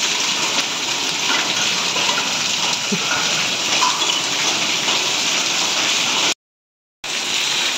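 Heavy rain mixed with hail pouring down steadily onto concrete and wet ground, a dense even hiss. The sound cuts out completely for under a second near the end.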